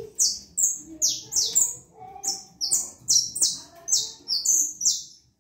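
Saffron finch (canário-da-terra) chirping: a loose run of about a dozen sharp, high chirps, each dropping in pitch, two or three a second, stopping shortly before the end.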